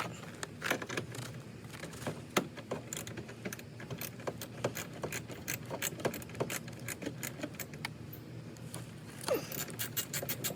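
Hand tool working a fog-light mounting screw loose under a car's bumper: irregular light metallic clicks and scrapes, with a quicker run of clicks near the end.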